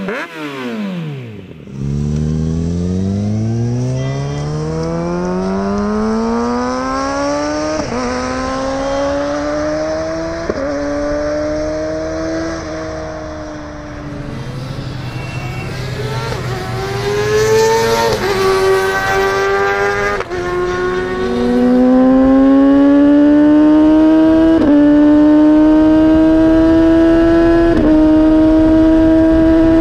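2019 Kawasaki ZX-6R inline-four on a Scorpion Serket Titan slip-on exhaust, accelerating hard through the gears. The engine note climbs and drops back at each of several upshifts.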